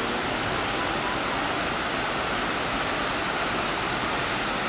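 River water rushing over a low concrete weir: a steady, even rushing noise.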